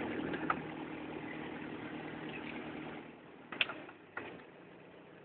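Small boat's engine idling with a steady low hum that drops away about three seconds in. A few sharp clicks follow, the loudest a little after the hum drops.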